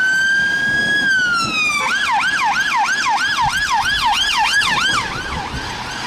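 Police car siren on a BMW patrol car running with blue lights. It gives a slow wail that rises and then falls, switches about two seconds in to a fast yelp of about three to four sweeps a second, and grows fainter near the end as the car drives off.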